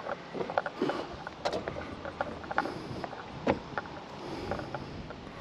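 Irregular light knocks and creaks from a wooden boat dock, over a steady outdoor haze of wind and water.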